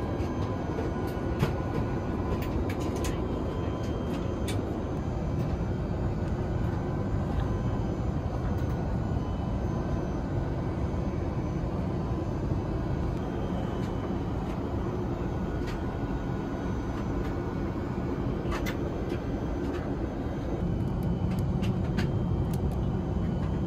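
Steady cabin noise inside an Airbus A380 airliner: a constant rumble of engines and rushing air, with a few faint clicks. The low rumble grows a little louder near the end.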